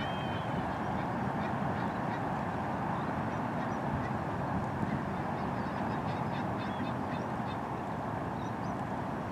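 Steady wind noise with a flock of birds calling throughout in many short, high calls.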